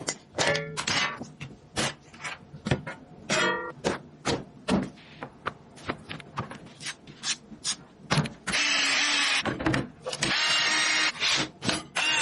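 Irregular clicks, taps and knocks of computer parts being handled and fitted during a PC build, with two longer scraping, hissing stretches in the second half.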